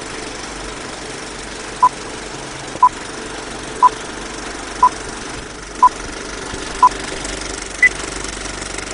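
Old-film countdown leader sound effect: a steady clattering film-projector run with a short beep once a second, six at one pitch and a seventh, higher beep near the end.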